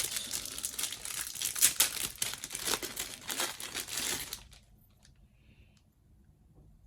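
Crinkly packaging of a scale-model wheel set being handled, a dense crackling for about four seconds that then stops, leaving a couple of faint clicks.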